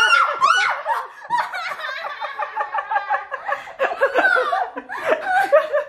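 People laughing: high squeals near the start, then a run of quick, even laughs for a couple of seconds, with more laughing and exclaiming after.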